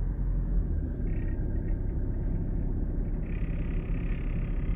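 Steady low rumble of a car's engine and tyres heard from inside the cabin while driving slowly along a wet road. A light hiss comes in about three seconds in.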